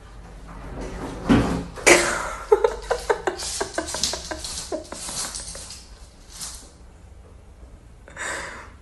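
Knocking and clattering of a pull-out kitchen cabinet drawer and the pan in it as a cat paws and pulls at it, a quick run of knocks that is loudest in the first two seconds and dies away after about seven.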